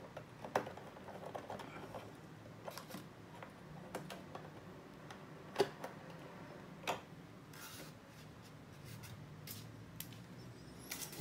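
Small screwdriver undoing the screws of a solar charge controller's terminal access cover, with scattered light clicks and taps of the tool and cover being handled; two sharper clicks come a little past halfway as the screwdriver is set down and the cover is lifted off.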